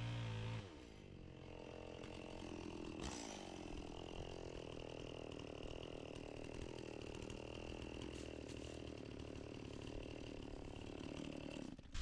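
Echo 670 two-stroke chainsaw at full revs that drops off in pitch under a second in, then idles steadily, with a brief blip of throttle about three seconds in. The sound cuts off abruptly just before the end.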